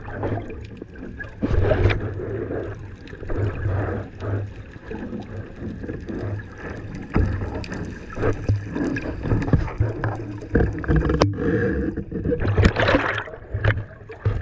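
Muffled underwater sound heard through a submerged GoPro: water sloshing and bubbling around the housing with irregular low thumps, and a louder rush of bubbles about three-quarters of the way through.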